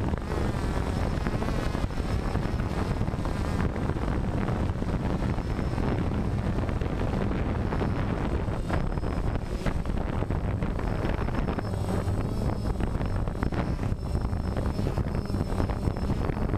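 DJI Phantom quadcopter's electric motors and propellers running steadily in flight, heard from the GoPro mounted on the drone: a dense whirring noise with a heavy low rumble and a faint high whine that shifts slightly in pitch.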